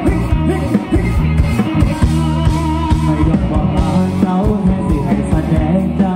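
Live rock band playing loud through a stage PA: drums, bass and electric guitar, with a singer's voice over them.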